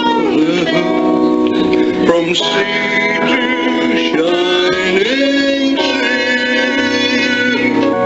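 A small child singing into a toy microphone along with a song playing, with guitar accompaniment underneath.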